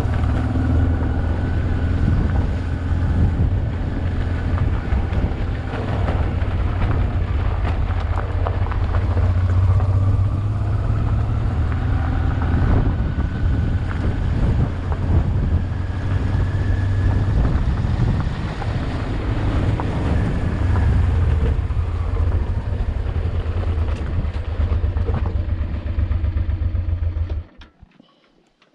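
Honda Transalp XL600V's V-twin engine running steadily on the move, a loud low drone whose pitch rises and falls gently with the throttle. It cuts off abruptly near the end.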